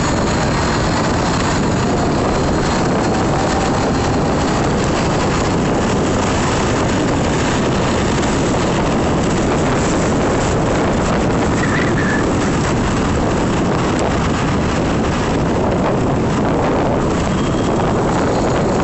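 Steady rushing noise of riding an e-bike through city traffic: wind buffeting the microphone over road and traffic noise, at a constant level.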